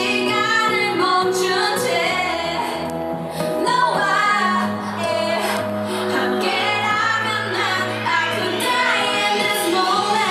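Live K-pop performance: female vocals over a loud electronic pop backing track with a steady bass line.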